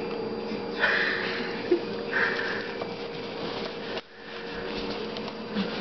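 White-bellied caique making two short breathy, hissing noises, about a second in and again a second later. A steady faint hum runs underneath.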